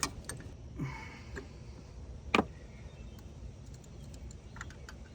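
A few light clicks and taps of tools and parts being handled, with one sharp click about two and a half seconds in.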